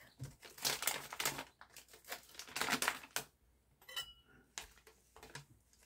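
Crinkling and rustling of plastic packaging in a run of short bursts, likely the beef stock packet being handled, with a brief faint clink about four seconds in.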